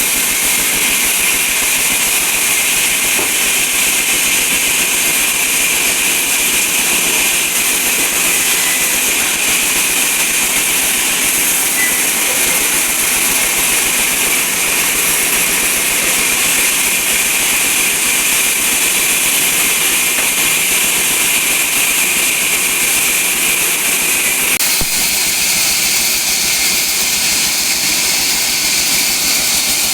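Sawmill saw running and cutting through wood, a steady loud hiss that changes slightly about 25 seconds in.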